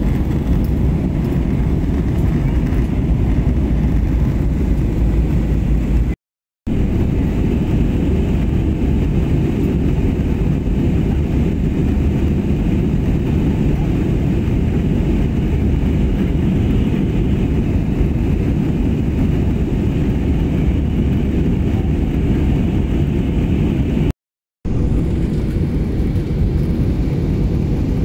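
Steady engine and airflow rumble inside the cabin of an Airbus A320-family jet airliner in flight, heavy in the low end. It cuts out completely for a moment twice.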